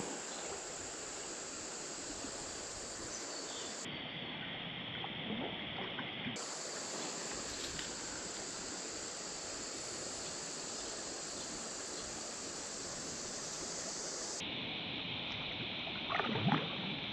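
Steady rush of a shallow creek's flowing water, with a brief splash near the end as a trout feeds at the surface.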